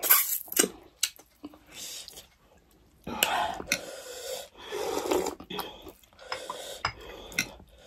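Close-up eating sounds of people eating rice and fish soup by hand: wet chewing, lip smacks and clicks, with short sharp breaths and slurps in between.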